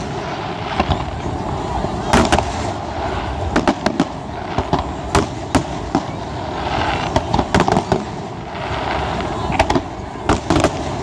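Fireworks display: aerial shells bursting in a string of sharp bangs, a dozen or so at uneven intervals, over a continuous noisy background.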